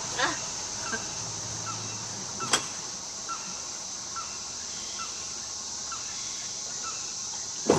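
Short animal calls repeating roughly once a second over a steady high-pitched hiss, with a sharp click about two and a half seconds in and a louder sound near the end.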